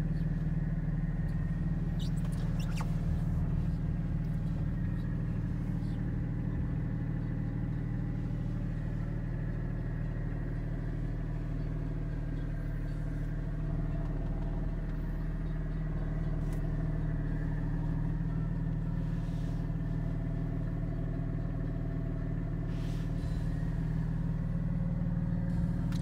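2021 Porsche 718 Spyder's 4.0-litre flat-six idling steadily, heard from inside the cabin.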